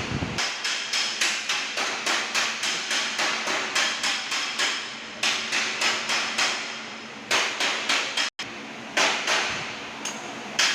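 Rapid light hammer strikes on a car's sheet-metal body panel during dent repair, in runs of about three to four taps a second with short pauses between runs.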